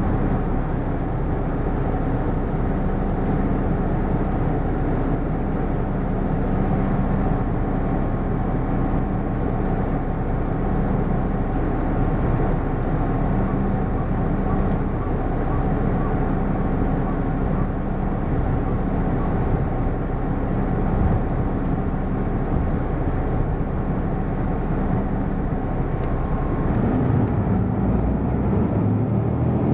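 Interior sound of a Hino PDG-KV234N2 city bus running, with its diesel engine note steady under road and cabin noise. Near the end the engine note rises as the bus pulls away or accelerates.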